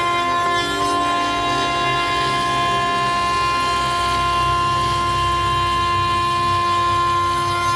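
6090 CNC router spindle running a straight cutter through old timber: a steady whine made of several fixed tones, with the rasp and rumble of the cut. One of the lower tones drops slightly about a second in.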